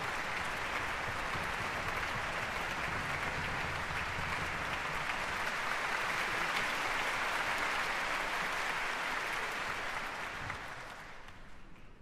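Concert-hall audience applauding steadily, the applause dying away over the last second or so.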